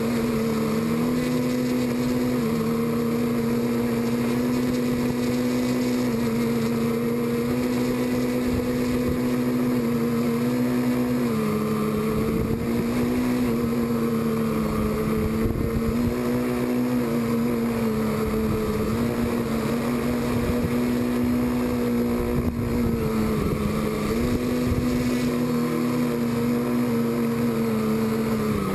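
Quadcopter's electric motors and propellers buzzing steadily, heard from its onboard GoPro. The pitch dips and rises a little every few seconds as the motor speeds change.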